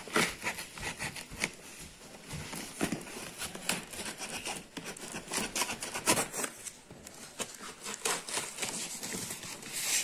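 A scissor blade scrapes and slits clear packing tape along the seam of a cardboard box, in irregular scratches with cardboard rubbing and crinkling. Near the end the box flaps are pulled apart with louder rustling.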